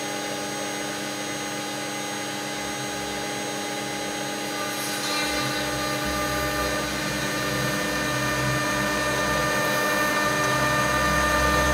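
High-speed CNC router spindle running with a steady whine of several held tones while the bit cuts a rough-in pass into a 6 mm white sheet. A low rumble of cutting load comes in about five seconds in and grows stronger near the end.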